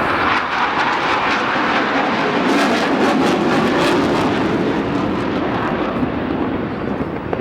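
Steady, loud jet noise from an RAF Eurofighter Typhoon's twin jet engines as the fighter flies its display.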